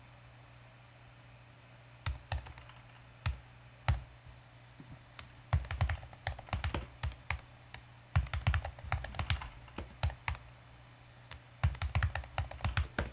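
Typing on a computer keyboard: a few single key clicks, then three runs of quick keystrokes.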